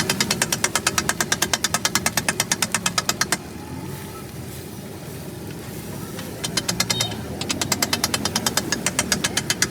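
Metal spatula striking a flat iron griddle (tawa) in rapid, even strokes, chopping and working egg tikki. The strokes stop a little over three seconds in and start again after about six and a half seconds.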